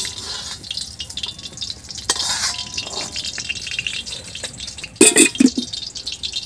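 Steel plates and utensils clinking and clattering as they are handled and set down, with a loud clatter of several knocks about five seconds in. A faint steady hiss of oil in the hot iron wok sits underneath.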